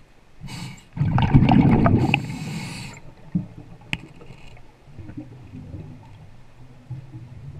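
Scuba diver's exhaled breath bubbling out of the regulator underwater: a loud gush of bubbles lasting about two seconds, then a single sharp click and a faint low gurgle of bubbles.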